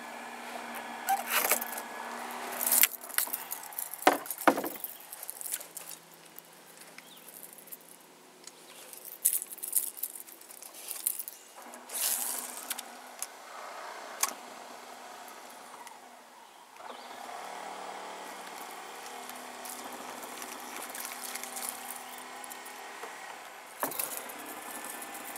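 Scattered knocks and clatter of gear and hull in a small fishing boat, over a steady low hum.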